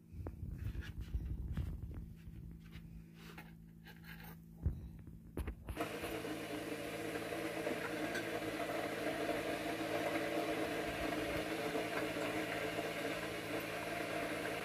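Soft handling knocks and rustles for the first few seconds, then a steady fan-like whir with a hum sets in abruptly about six seconds in and holds evenly.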